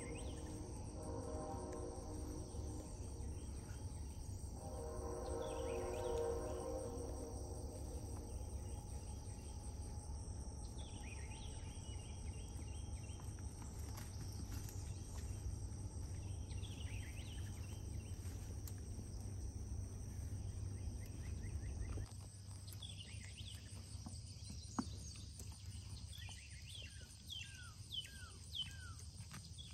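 Summer outdoor ambience: a steady high insect drone with series of short, quick, falling chirps, which come thickest near the end. Two drawn-out pitched calls stand out in the first seven seconds, and a low rumble runs underneath until it drops away about two-thirds of the way through.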